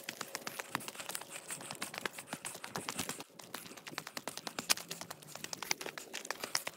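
Footsteps on a rough hill path: a dense, irregular run of short crackling clicks from shoes on loose stones and grit.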